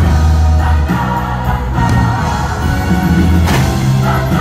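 Fireworks show soundtrack playing loud: music with a choir singing sustained chords.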